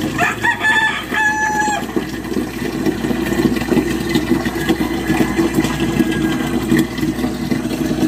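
A rooster crowing near the start, one call in two parts, over a steady rushing noise.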